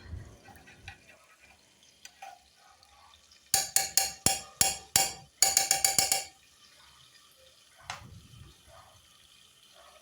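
Metal spoon knocking against a metal cooking pot, about a dozen sharp knocks in two quick runs, each ringing briefly.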